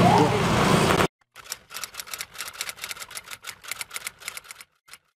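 A second of outdoor street noise cuts off abruptly. Then comes a quick run of sharp typewriter-like key clicks, about six a second, for some three seconds, which stops near the end.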